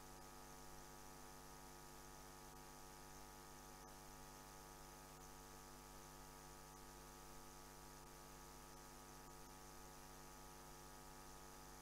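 Near silence, apart from a steady electrical mains hum and faint hiss on the audio line.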